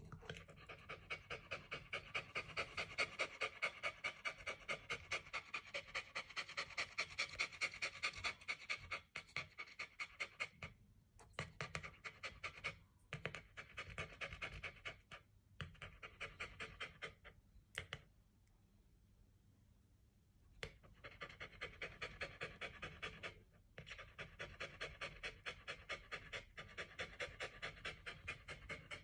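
A dog panting rapidly and evenly close to the microphone, with brief breaks and one pause of about two seconds past the middle before the panting resumes.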